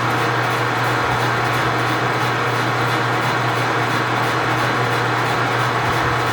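Precision Matthews 1640 metal lathe running steadily at 180 rpm, turning a roughing cut on a large cold rolled steel bar. A steady motor and gear hum with the even sound of the tool cutting.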